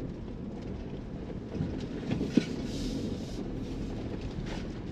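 A vehicle driving, heard from inside the cabin: a steady engine and road rumble, with one short knock about halfway through.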